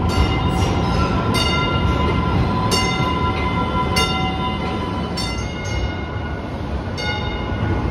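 MBTA Green Line light rail train running through an underground station: a steady rumble with a high steady whine, and short sharp squeaks from the wheels every second or so.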